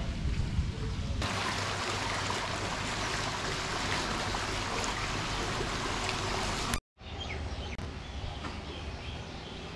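Outdoor ambience: a steady hiss that cuts off abruptly about seven seconds in, then a quieter background with a few faint bird chirps.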